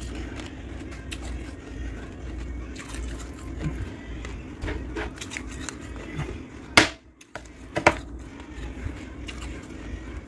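Fluffy freezer frost crunching and crackling as a hand squeezes and presses it, with two sharper, louder crunches about 7 and 8 seconds in, over a steady low hum.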